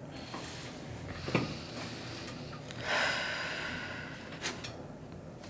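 A person breathing out audibly through the nose, starting about three seconds in and fading over about a second, with a soft click before it and another after.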